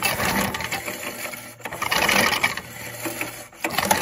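A 3 hp Briggs & Stratton lawn engine cranked over a few times with its recoil pull starter, the spark plug removed, the rope and engine whirring in repeated pulls. The engine is being turned over to push pond water out of its flooded cylinder.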